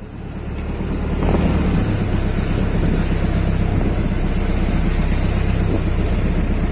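Boat engine running steadily with a low, even hum, with wind noise on the microphone.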